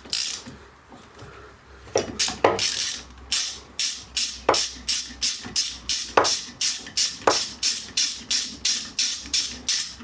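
Ratchet socket wrench undoing a bolt under a bench vice: a steady run of short ratcheting rasps, about three a second, starting about two seconds in.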